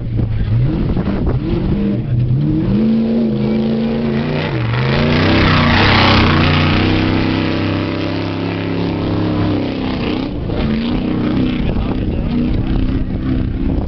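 Off-road trophy truck engine racing up at full throttle, the revs climbing through the gears as it approaches. It is loudest as it passes close about six seconds in, with a rush of tyre and gravel noise, then the engine note carries on as it pulls away.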